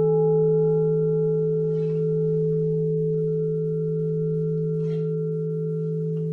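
Singing bowls ringing after a strike: several steady, layered tones, low and mid, sustaining and slowly fading, with a higher overtone dying away about three seconds in.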